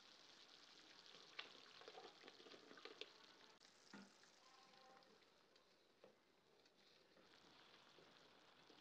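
Faint bubbling of soup broth simmering in a nonstick pan as it thickens, stirred with a wooden spatula, with a few light knocks of the spatula against the pan in the first half.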